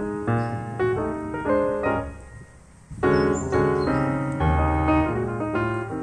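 Background piano music: a run of struck notes that thins out and goes quiet for about a second near the middle, then comes back fuller and louder.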